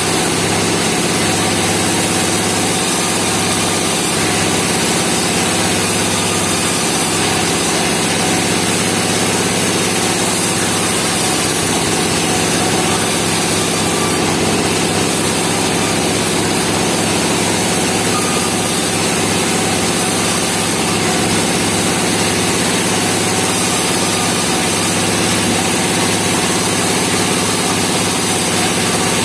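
Engine of a band sawmill running steadily at idle, with no cut being made.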